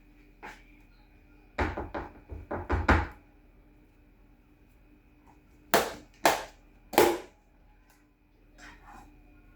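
Household knocks and thuds: a quick cluster of knocks about two seconds in, then three sharp knocks about half a second apart a little past the middle, over a faint steady hum.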